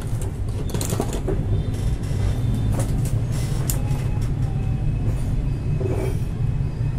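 Steady low hum, with a few light clicks and taps as a battery cell and a pair of pliers are handled on a work mat.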